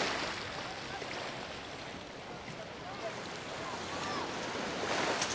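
Seaside ambience: a steady wash of small waves and wind, swelling at the start and again near the end, with faint distant voices.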